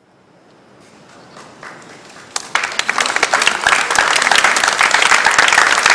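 Audience applause: a few scattered claps swell out of near silence, then a whole crowd breaks into steady clapping about two seconds in.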